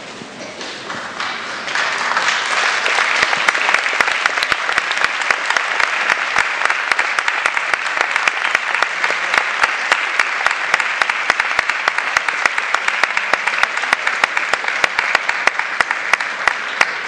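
Audience applauding: many hands clapping together, building up over the first couple of seconds and then holding steady.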